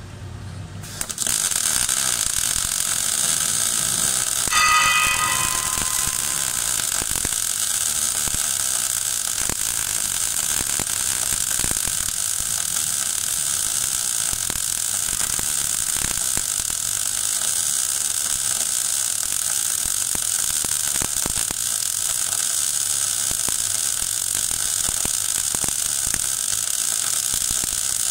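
MAG (gas metal arc) welding arc on a vertical-up fill pass in 12 mm steel plate, struck about a second in and then running with a steady crackle and hiss at 16.5 volts. A brief high-pitched tone sounds over it about four and a half seconds in.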